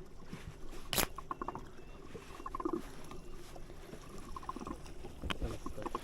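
Water slapping and lapping against the hull of a small drifting boat, with two sharp knocks about a second in and again near the end.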